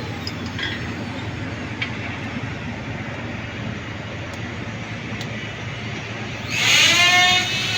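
Steady background noise, with a loud horn blast lasting about a second near the end.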